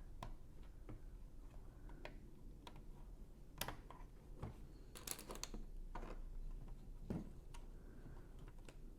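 Small Lego plastic pieces clicking as tiles are handled and pressed onto the build: scattered sharp clicks, with a quick cluster about five seconds in.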